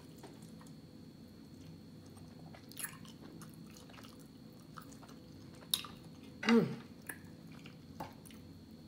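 Close-up eating sounds: quiet chewing and mouth noises with small clicks, as a lemon wedge is squeezed over a plate of food. About six and a half seconds in comes one short, louder voiced sound that falls in pitch.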